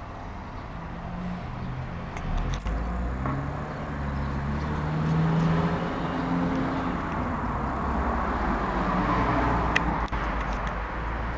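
A motor vehicle's engine running, its low hum growing louder over the first half and then holding, with a couple of sharp clicks.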